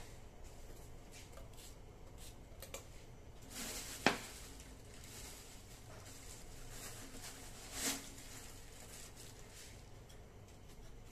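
Quiet handling noises in a small room: scattered light clicks, one sharp knock about four seconds in and a short rustle near eight seconds.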